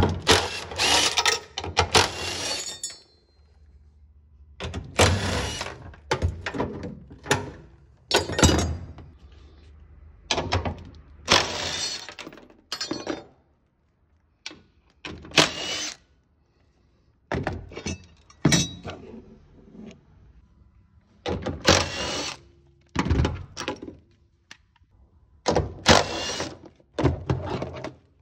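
Cordless impact driver hammering out the bolts of a car's rear ISOFIX mounts, seat brackets and seat-belt anchors, in about a dozen bursts of a second or two with short pauses between.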